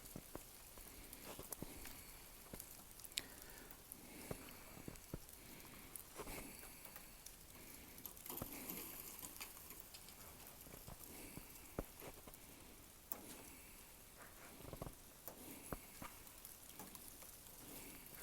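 Faint, irregular patter of snow clumps and drips falling from trees, scattered soft ticks a second or so apart.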